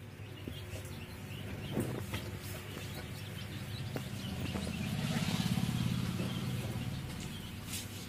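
An engine running nearby, steady and growing louder around the middle, with birds chirping and a few light knocks.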